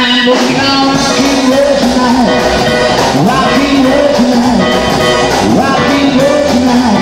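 Rock and roll band playing live, with electric guitar and electric bass, and a short pitched phrase repeating about once a second.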